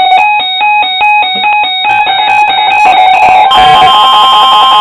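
Weather alert radio sounding its alarm over a two-way radio link: a beeping that steps back and forth between two pitches several times a second. About three and a half seconds in, a steady high tone starts, the NOAA Weather Radio warning alarm tone that comes before a tornado warning broadcast.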